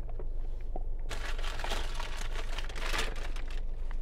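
Food packaging being crumpled and rustled for a couple of seconds, starting about a second in, over a steady low hum.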